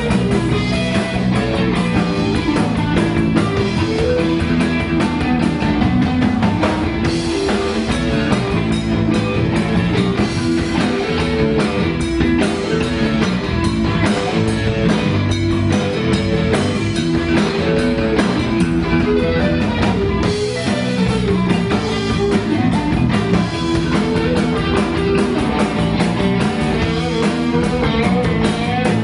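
A blues band playing live, with guitar to the fore over bass and drums in a steady groove.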